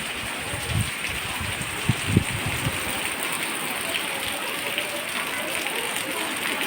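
Steady downpour of heavy rain hissing, with a few short low thumps about a second in and around two seconds in.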